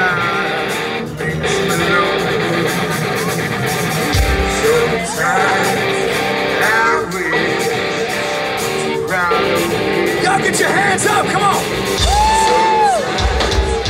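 Rock band playing live, with electric guitars, bass and drums and a voice singing over them. Heavy low drum hits come in about four seconds in and again near the end.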